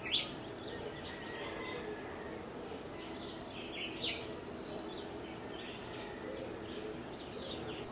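Tropical rainforest morning ambience: birds chirping with short repeated falling calls over a steady high insect drone.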